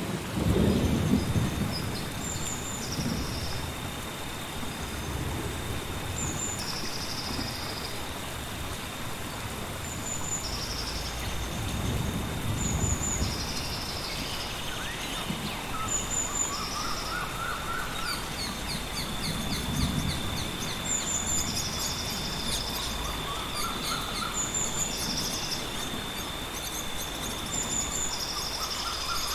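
Forest ambience: a bird calls over and over every few seconds, a short high note followed by a trill, while a lower trill joins a few times in the second half. Under it runs a steady high whine and soft low rumbles.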